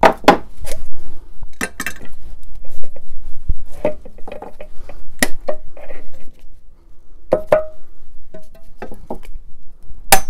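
A hammer striking a screwdriver held on the lid of a metal paint can, punching a pour hole through the tin. Sharp, irregular strikes with short metallic ringing and small clinks between them.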